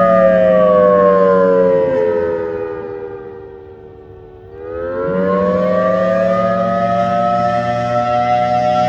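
Federal Signal Thunderbolt 1003 outdoor warning siren sounding the attack signal: its tone falls and fades over about four seconds, then rises again and holds high.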